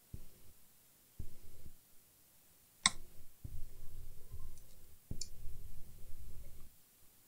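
Hand tools on a PC power supply circuit board: a sharp click about three seconds in and a lighter one about two seconds later. Between them a low electrical hum of steady tones cuts in and out abruptly several times.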